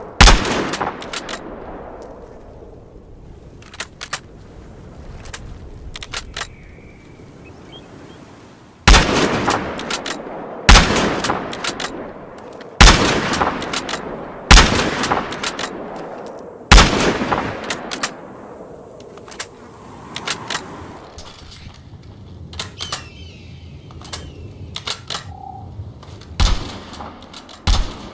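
Springfield M1903 bolt-action .30-06 rifle firing single shots: about six loud reports, each with a ringing tail, five of them coming roughly two seconds apart in the middle. Quieter clicks and knocks fall between the shots, with a few sharper ones near the end.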